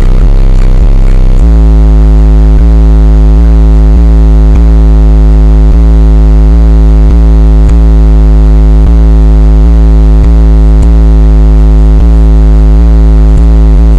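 Bass-heavy electronic music played very loud through car subwoofers (a 15-inch and a 10-inch sub with 6.5-inch speakers). A deep, steady bass note with a pulse about every three-quarters of a second comes in about a second and a half in. It is loud enough to overload the recording.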